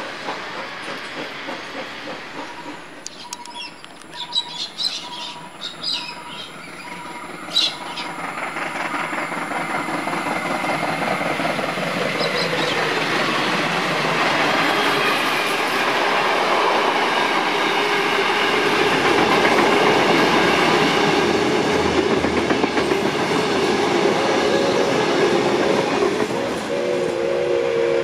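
BB18¼ class steam locomotive 1089 and its carriages running past at speed. The rush and clickety-clack of the train on the rails builds from about eight seconds in to its loudest in the middle and stays loud. There are sharp clicks a few seconds in, and a few steady tones join near the end.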